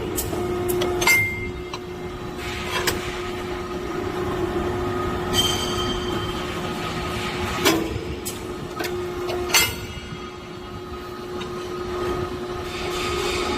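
Hydraulic punching machine (PM-80T, 80-ton) with its pump motor running at a steady hum. Four sharp knocks from the machine's strokes on the steel break across the hum, and a brief ringing tone comes about halfway through.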